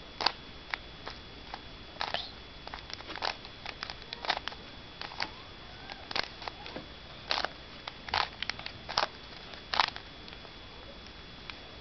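Plastic Rubik's Cube being turned by hand, its layers clicking and clacking in quick, irregular bursts.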